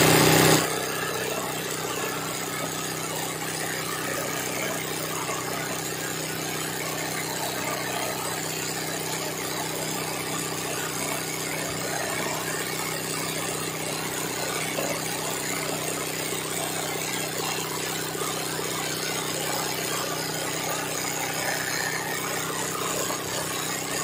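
Sewing machine running steadily at a fast stitch, its needle stitching free-motion embroidery as the fabric is moved by hand.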